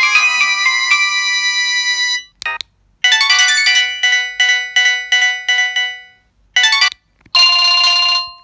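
Samsung GT-E1170 mobile phone ringtones playing one after another: one electronic melody ends about two seconds in, and after a short pause a new tune of short, quickly repeated notes begins. Near the end a brief burst is followed by a steady held tone lasting about a second.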